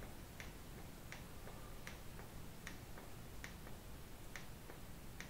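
Faint, sharp clicks of a remote control's push button pressed over and over, about once every three quarters of a second, sending its code for a self-learning remote to copy.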